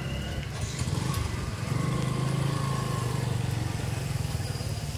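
Street traffic: a motor vehicle's engine running close by, a steady low rumble that grows louder about two seconds in and then eases.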